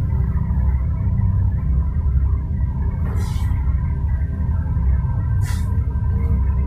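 A steady, low, droning rumble with faint sustained tones over it, like an eerie ambient music bed. Two brief hissing sounds come about three seconds in and again near five and a half seconds.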